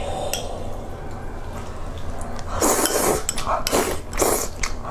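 Eating utensils clinking and scraping against dishes during a meal, in a few short bursts and sharp clicks from about halfway through.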